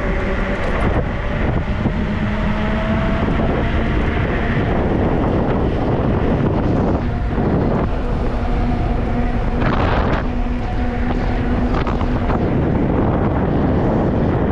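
Wind rushing over the microphone while a 3000 W 48 V electric dirt bike climbs a steep hill under throttle, its motor giving a faint steady whine.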